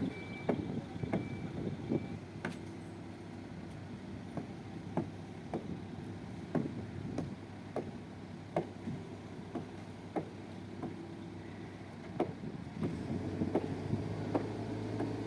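Diesel engine of a heavy earthmoving machine running steadily, with sharp metallic knocks about every half second to second. The engine picks up and runs louder near the end.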